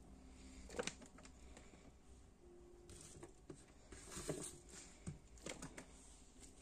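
Faint, scattered light taps and clicks, about half a dozen over a few seconds, over quiet room tone.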